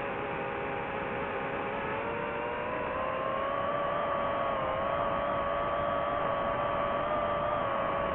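DJI FPV drone's motors and propellers whining in fast sport-mode flight: two steady tones over a rushing noise. The pitch rises between about two and four seconds in, then holds.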